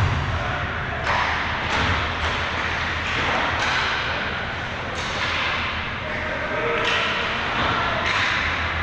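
Ice hockey play on an indoor rink: a heavy thud right at the start, then sharp scrapes and clacks every second or so, over a steady low hum.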